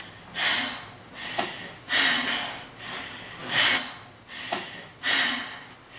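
A person breathing heavily and rhythmically, one loud noisy breath about every second and a half.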